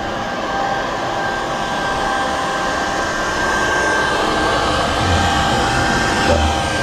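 Cordless vacuum cleaner running steadily, its motor giving a constant high whine over the rush of air.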